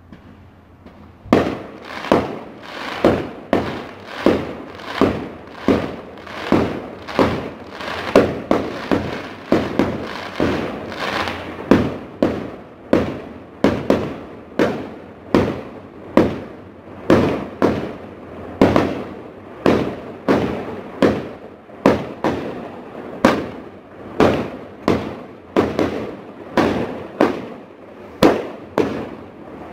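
Aerial fireworks bursting high overhead: after about a second of quiet, a long unbroken string of sharp bangs, roughly one and a half to two a second, each trailing off in echo.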